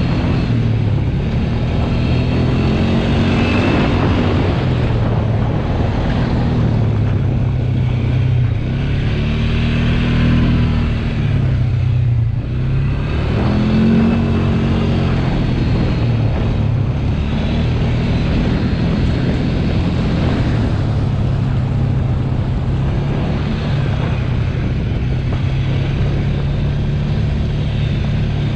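ATV engine running under way, its pitch rising and falling with the throttle several times, then holding fairly steady through the second half.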